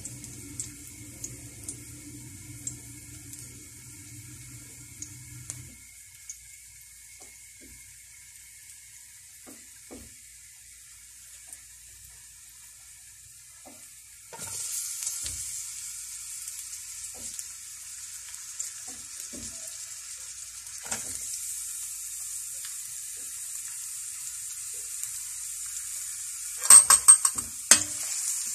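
Chopped garlic sizzling in hot oil in a steel wok, the sizzle growing louder about halfway through. Near the end a metal spatula clatters and scrapes against the wok as sliced onions are stirred in. A low hum runs under the first few seconds and then stops.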